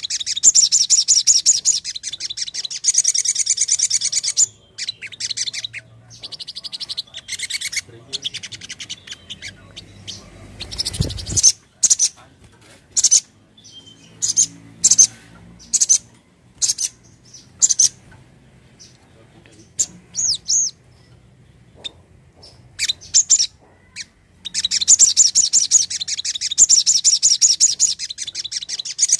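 Sogon (sogok ontong) birdsong: fast, high chattering trills at the start and again near the end, with sharp single chirps in between. A low thump about eleven seconds in.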